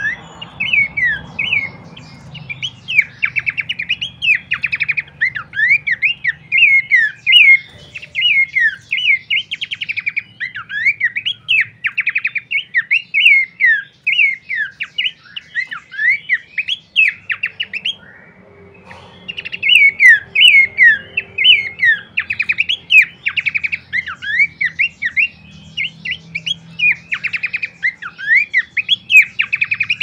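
Pelanduk semak babbler singing a fast, continuous run of loud chirping whistled notes that swoop up and down, with a lull of a few seconds about halfway through.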